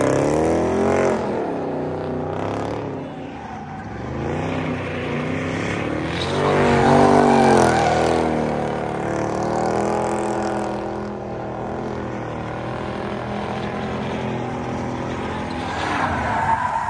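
Car engine revving hard as a car slides and spins, its pitch climbing and dropping repeatedly, with tyres squealing. The loudest rev comes about seven seconds in.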